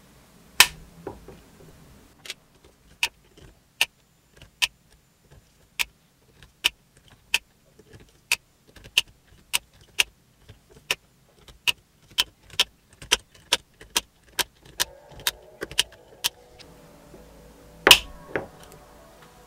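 Two-rotor model Wankel engine turned over with a driver on its eccentric shaft, giving a series of sharp metallic clicks. They come slowly at first, then quicken to about three a second, with a loud click near the end.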